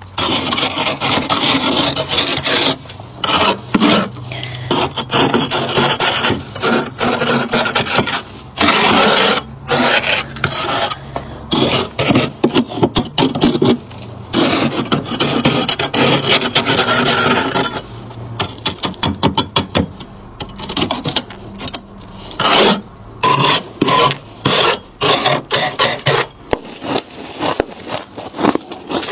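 A metal scraper blade rasping over thick frost built up on the walls of a chest freezer. Long scraping strokes in the first half give way to a run of quick, short strokes from a little past the middle.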